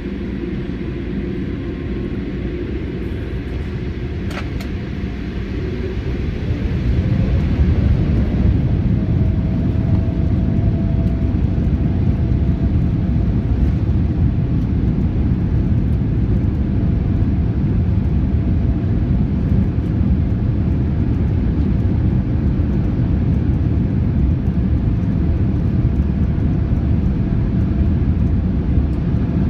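Boeing 787-8 Dreamliner's jet engines at takeoff: a steady low rumble that grows louder about six to eight seconds in as thrust comes up, then holds, with a faint steady whine joining it.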